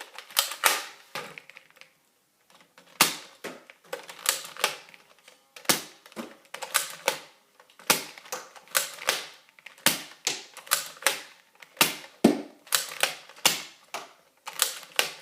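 Nerf Maverick REV-6 toy pistol being repeatedly pulled back to prime and fired: a run of sharp plastic clacks and snaps, often in quick pairs, about one cluster a second.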